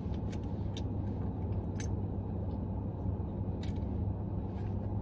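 Steady low hum of a parked car running, heard from inside the closed cabin, with a few brief faint clicks.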